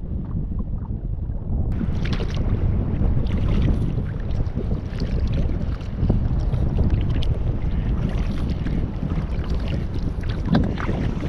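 Strong wind buffeting the microphone as a steady low rumble, with scattered small water splashes around a small kayak.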